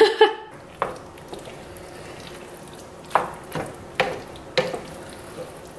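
Wooden spoon stirring thick, creamy risotto in a stainless steel pan, with several sharp knocks of the spoon against the pan over a low, steady sizzle.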